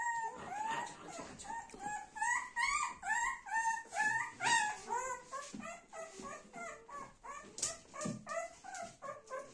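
Newborn golden retriever puppy crying: a rapid string of short, high-pitched squeaks and whimpers, two or three a second, growing fainter toward the end.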